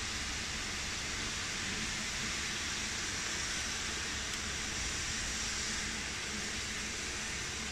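Steady hiss of steam venting from a standing LNER B12/3 steam locomotive.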